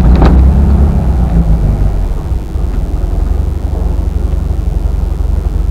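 Low, steady rumble of a VW Thing's air-cooled flat-four engine and drivetrain as it drives slowly, with a single clunk just after the start.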